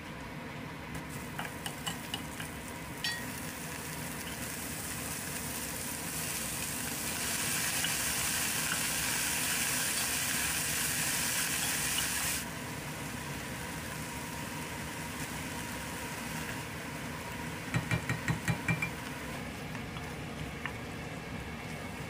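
Food sizzling in a frying pan, with light clicks in the first few seconds. The sizzle grows louder about a third of the way in and drops off sharply just past the middle. A quick run of about six knocks comes near the end.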